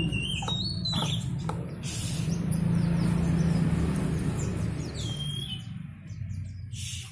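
Pet white-eye (pleci) chirping in short high calls with one whistled glide, over the steady rushing hiss of water during its bath, which eases off after about six seconds.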